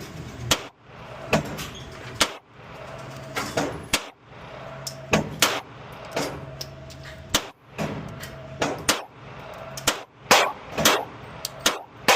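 Springfield Echelon pistol firing a long string of single shots at an uneven pace, some in quick pairs. A low steady hum sounds between the shots.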